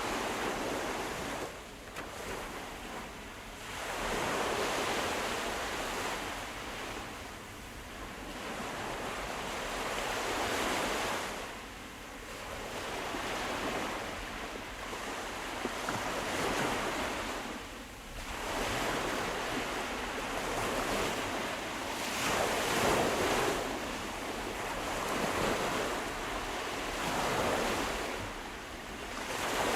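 Sea waves breaking and washing onto the shore, the surf swelling and ebbing every three to six seconds, with some wind noise.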